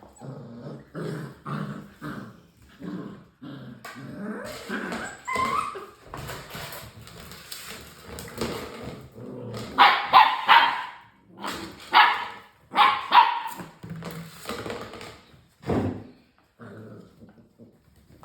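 Six-week-old English Springer Spaniel puppies yipping, whimpering and barking in many short cries, with a run of louder, higher-pitched barks a little past the middle.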